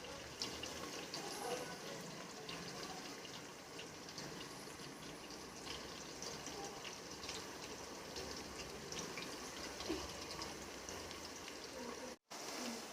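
Sliced onions frying in hot oil in a pan: a steady sizzle with small crackles throughout. The sound cuts out briefly near the end.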